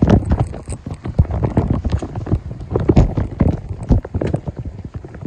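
Raindrops striking the phone right at its microphone: dense, irregular tapping and thudding, mixed with footsteps on wet concrete steps.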